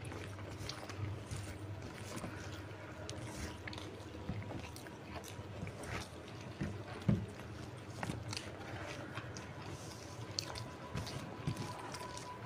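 Quiet, close-miked eating: chewing and small wet mouth clicks, with fingers mixing rice and curry on a banana leaf. A sharper click stands out about seven seconds in.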